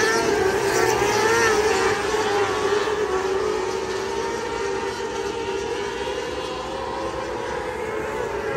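Several 600cc micro sprint car engines running at high revs around a dirt oval, their high-pitched note wavering up and down as the cars go through the turns. The sound eases off through the middle as the pack moves away and swells again near the end.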